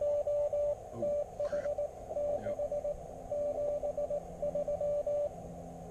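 Morse code (CW) from an Elecraft KX3 transceiver: a single steady mid-pitched tone keyed into dots and dashes, over faint receiver hiss. The keying stops shortly before the end.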